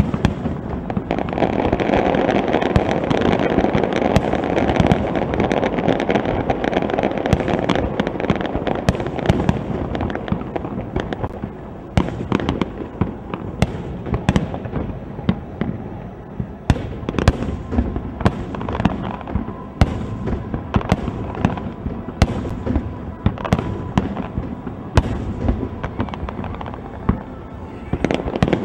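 Aerial fireworks going off in quick succession: sharp bangs over a dense, continuous crackle and rumble for the first ten seconds or so. After that the bangs come more separately, about one or two a second.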